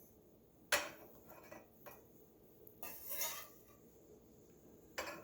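Kitchen utensils knocking and clinking against a dish as chopped spring onion is moved into it: a sharp clink about a second in, a few light taps, a brief scrape around three seconds, and another clink near the end.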